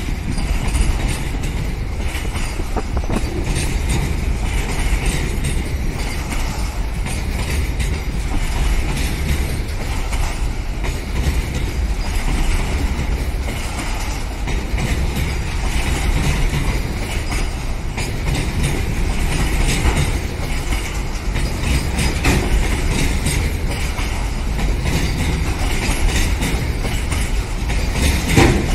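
Rake of BCACBM covered car-carrier wagons rolling past: a steady rumble of steel wheels on the rails with repeated clatter as the bogies cross rail joints.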